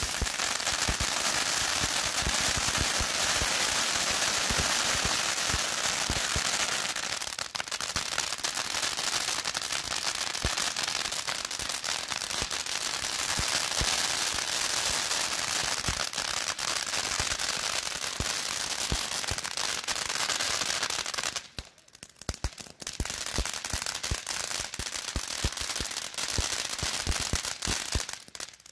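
A 500-gram Cutting Edge Fireworks 'Amazing' fountain firework spraying sparks, with a continuous hiss and dense crackling. It drops away briefly about three-quarters of the way through, then picks up again.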